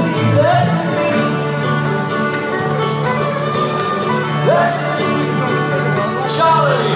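Live band playing an instrumental passage: fiddle playing sliding melody lines over strummed acoustic guitar and electric guitar.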